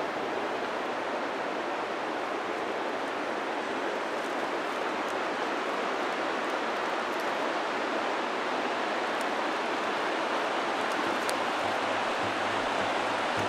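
Rushing river rapids: a steady wash of moving water, growing slightly louder toward the end.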